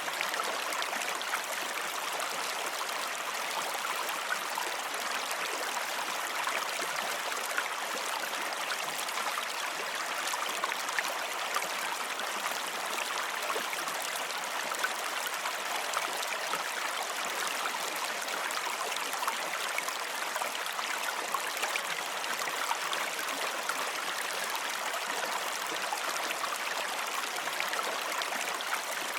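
Running water flowing steadily: an even rush with many small splashes, unchanging throughout.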